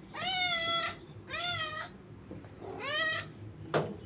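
Domestic cat meowing three times, each call about half a second long, as it waits to be fed. A single sharp tap sounds near the end, over a low steady hum.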